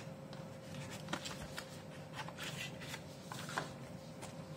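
Paper leaflets and cardboard from a smartphone box being handled: light rustling with scattered soft clicks.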